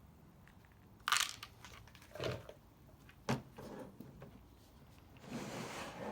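Parts being handled during hands-on work: a sharp crackle about a second in, two short knocks a second apart, then about a second of rustling near the end.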